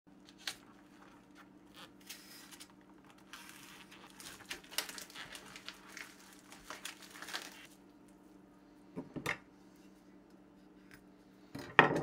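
Clear plastic vacuum-seal packaging crinkling and tearing as it is pulled off a raw pork roast by hand. About 9 s in and again, louder, near the end come short handling thumps of the bare meat on a wooden cutting board.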